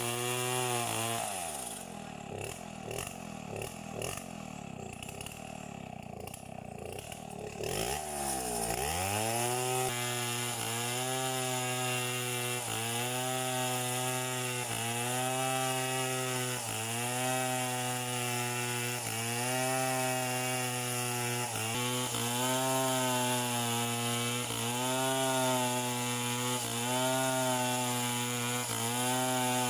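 Chainsaw running under load, cutting wood. Its engine pitch sags for several seconds early on, drops hard about eight seconds in and picks back up, then holds steady with small regular dips as the chain bites.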